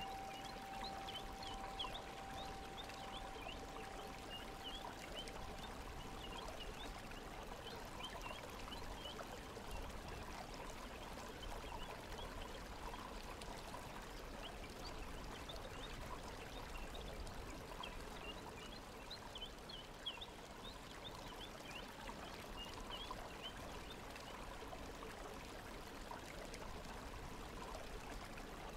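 Running water, an even rushing wash with many small high trickling, chirp-like notes over it. A steady tone sounds beneath it and stops about six seconds in.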